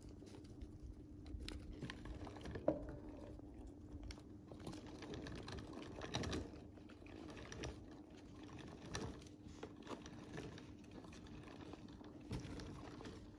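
Hamsters scrabbling about their cage: quiet, irregular clicks and rustles of small claws on plastic fittings and wood-shaving bedding, with one sharp click a few seconds in and a faint steady hum underneath.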